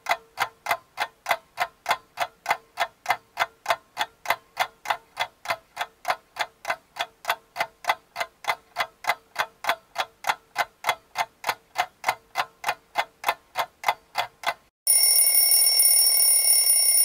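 A clock ticking evenly, about three ticks a second, then an alarm that breaks in suddenly and rings steadily for the last two seconds.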